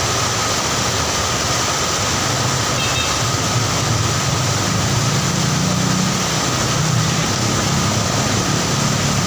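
Heavy rain pouring down steadily, a dense even hiss. A low rumble builds under it from about halfway through.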